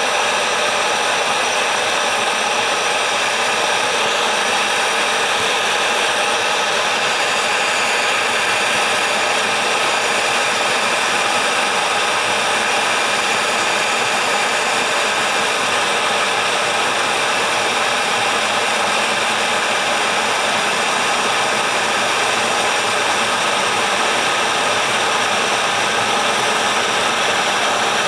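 Glass electric kettle heating nearly two litres of water: a steady rushing hiss as bubbles rise from the heating plate and collapse. It is not yet at a full boil and has not clicked off.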